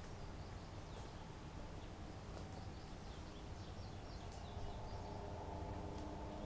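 Faint outdoor background noise with a few soft, short bird chirps and light clicks. A faint steady tone comes in about two-thirds of the way through.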